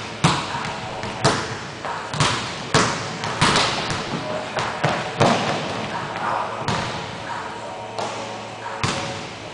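Basketball bouncing on a hardwood gym floor during play: a string of irregular thuds, about ten, each echoing briefly in the large hall.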